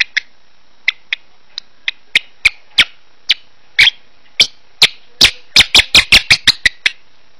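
A lovebird's short, sharp chirps, sparse at first, about one a second, then quickening in the second half into a rapid run of several a second. It is the bird's soft singing as it settles down to sleep.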